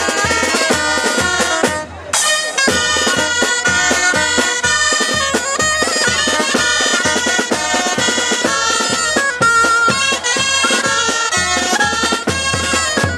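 Several dulzainas, Castilian double-reed shawms, play a lively folk tune together in a loud, reedy unison, over a steady beat from a bass drum and snare. The music breaks off briefly about two seconds in, then picks up again.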